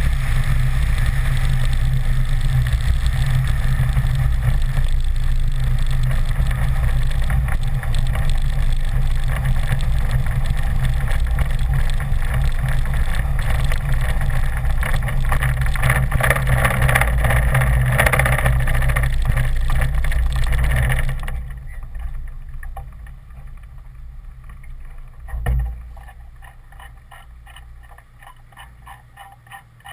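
BD-4 light aircraft's piston engine and propeller running, with wind rushing over the wing-mounted camera as the plane rolls out and taxis. About two-thirds of the way through the sound drops sharply to a quieter, slow, even pulsing of the engine at low idle, and a single dull thump follows a few seconds later.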